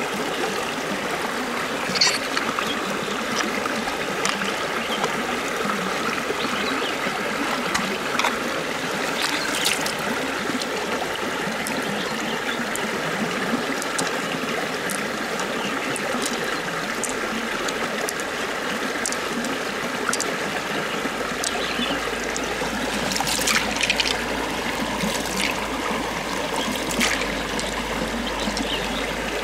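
Steady running, trickling water, with a few light clicks and wet handling noises scattered through it.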